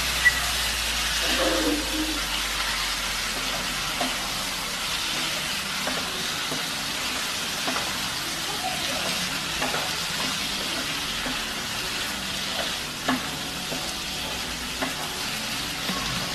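Chicken pieces sizzling in an onion and spice masala in a nonstick frying pan, stirred with a spatula that scrapes and knocks against the pan now and then. This is the kosha stage: the meat being fried down in the spices before water is added.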